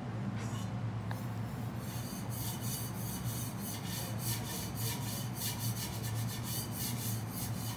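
Quick rhythmic scraping strokes, about three a second, of a metal spatula or scraper on the steel teppan griddle, over a steady low hum.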